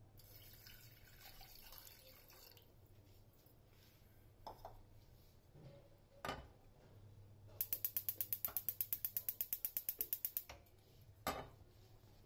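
Gas stove's electric igniter clicking rapidly, about seven clicks a second for about three seconds. A hiss comes first, and a few single knocks fall before and after the clicking.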